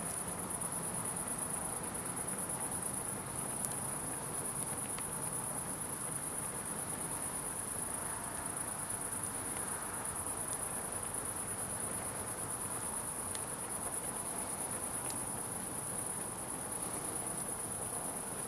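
Logs burning in a grill fire box, giving a few faint crackles, under a steady, high-pitched, fast-pulsing trill that is the loudest sound.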